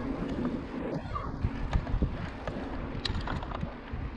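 Wind buffeting the microphone and a steady low rumble of riding a mountain bike over a rough surface, with scattered sharp rattling clicks.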